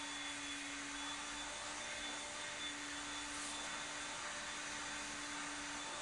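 Steady background hiss with a faint constant hum underneath, unchanging throughout.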